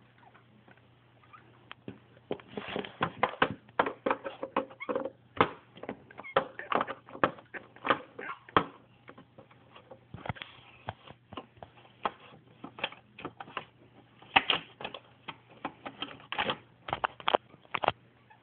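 Small plastic toy figures being handled and knocked on a hard surface: irregular clicks and taps in quick clusters, starting about two seconds in, over a low steady hum.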